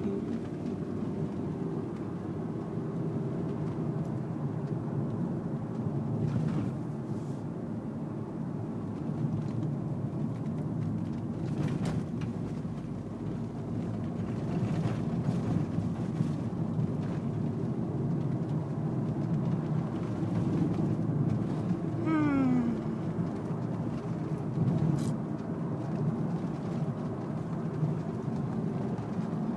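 A car driving along a road, heard from inside the cabin: a steady low hum of engine and tyre noise. A short falling tone is heard about three quarters of the way through.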